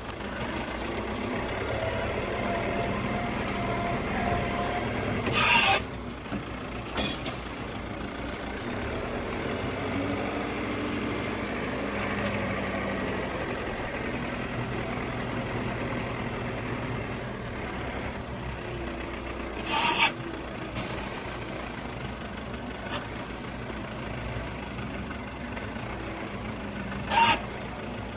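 TL100 diesel tractor engine running while working hay bales, with a changing whine as the loader is worked. Three short, loud bursts of hiss stand out, about 5 seconds in, around 20 seconds in, and near the end.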